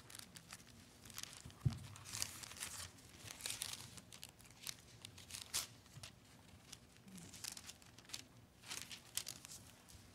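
Thin Bible pages being leafed through and turned by hand, a faint, irregular papery rustling and crackling, with a light bump about two seconds in.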